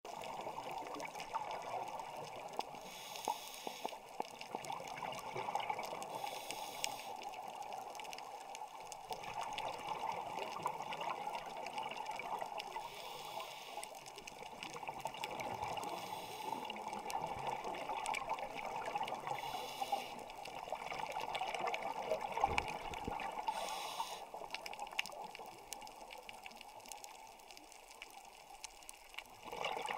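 Underwater reef ambience: a steady rushing hiss with fine crackling, broken by several short louder bursts of hiss. It grows quieter near the end.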